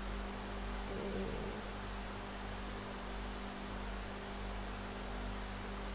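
Steady electrical hum with a faint hiss underneath.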